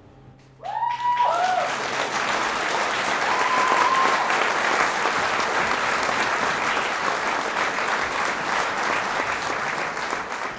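Audience applause breaking out under a second in as the last acoustic guitar note dies away, with a few high whoops over the clapping in the first seconds.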